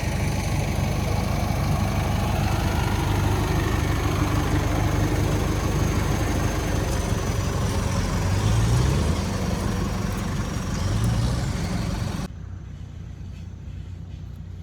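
Off-road vehicle's engine running steadily, with two short revs about eight and eleven seconds in. Near the end it drops suddenly to a quieter, duller engine hum.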